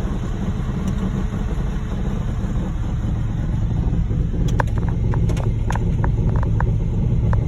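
Heavy diesel truck engines running with a steady low rumble that grows a little louder about four seconds in. From then on a scatter of short sharp clicks and knocks sounds over it.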